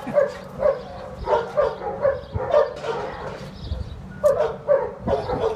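A dog barking repeatedly in short, quick barks, a few a second, with a brief pause about three and a half seconds in.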